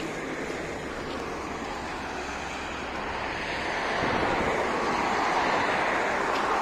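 Wind rushing over the microphone, growing louder about four seconds in.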